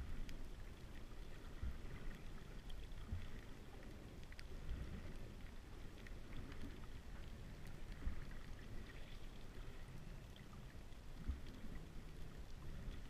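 Muffled underwater sound from a submerged camera: a low, uneven rumble of moving water with scattered faint clicks.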